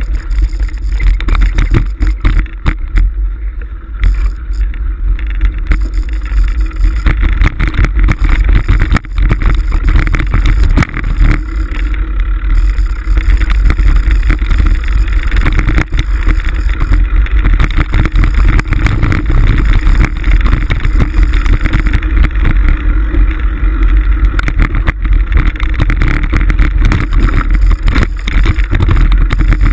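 Mountain bike riding a rough dirt trail, heard through a handlebar-mounted camera: wind buffets the microphone as a steady loud rumble, and the bike's jolts over the ground come through as constant knocks and rattles.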